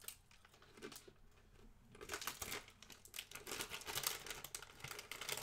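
Snack packaging crinkling and potato chips crunching as they are eaten, a dense crackle from about two seconds in.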